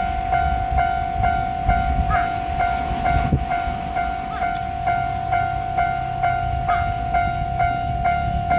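Japanese level-crossing bell ringing in a steady, even rhythm of nearly three strokes a second, with a low rumble underneath.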